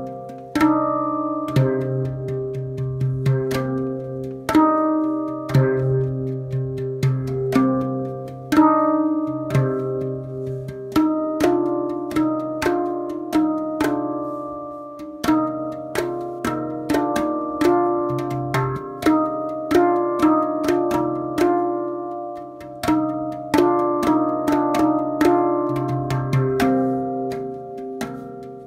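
Spacedrum handpan tuned to the Deep Sky scale (C3, E♭3, G3, B♭3, C4, D4, E♭4, F4) played with bare hands: a steady flow of struck steel notes that ring on and overlap, with the low C3 sounding again and again under the higher notes.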